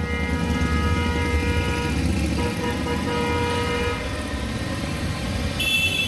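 A group of motorcycles riding past at low speed, engines rumbling, while a horn sounds one long steady toot for about four seconds. Near the end a higher, shriller steady tone starts.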